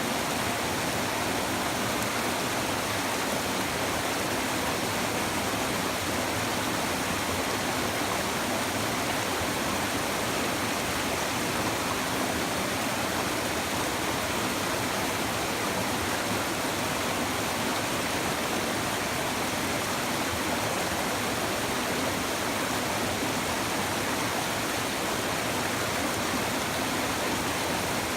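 Shallow river babbling over stones, a steady rushing and splashing of running water without a break.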